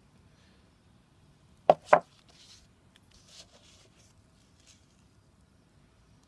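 Two sharp clacks about a quarter second apart, about two seconds in, as the steel-backed Twizy brake pads are knocked down on a hard surface, followed by faint rustling as they are handled.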